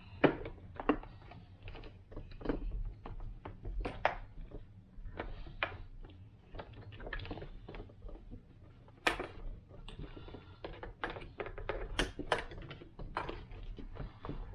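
Irregular sharp clicks and knocks of plastic parts being handled and fitted together as the jump starter pack is reassembled.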